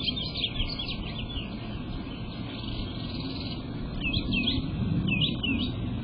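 Small songbirds chirping in quick, up-and-down notes: a run of them at the start, then short phrases again about four and five seconds in, over a steady low rumble.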